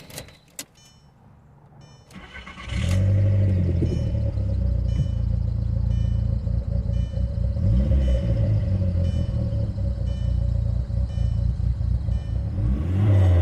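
Audi TT's 1.8-litre turbocharged four-cylinder started about two and a half seconds in, catching and settling into a steady idle through a freshly fitted flex pipe and the refitted muffler. The revs rise and fall briefly about eight seconds in and again near the end.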